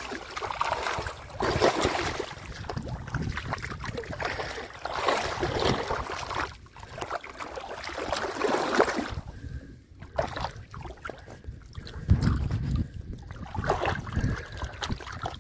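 Shallow muddy water splashing and sloshing in irregular surges as hands grab at a fish that thrashes in it.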